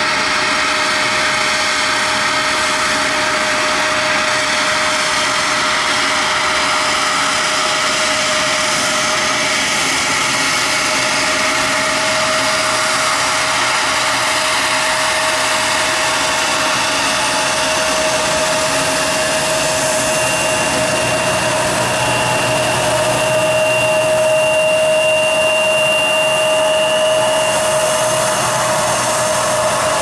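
Bombardier CRJ-900's two GE CF34 turbofan engines running with a steady whine over a rushing noise as the jet taxis on the runway. About two-thirds through a higher whine joins and the sound grows a little louder as thrust comes up for the takeoff roll.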